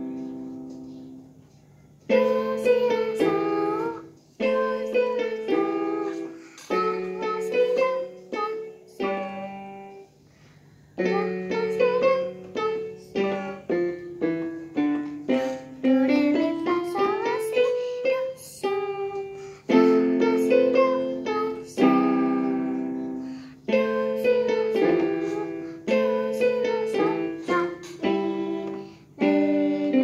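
Electronic keyboard played by a child: a simple beginner piano-exercise tune in short phrases of single and paired notes, broken by brief pauses, with a rising run of notes in the middle.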